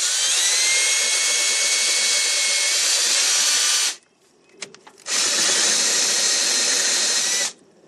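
Power drill with a 3/8 inch bit drilling out the rivets that hold a truck's inside door handle. It runs in two steady bursts, the first about four seconds long and the second about two and a half, with a brief stop between them.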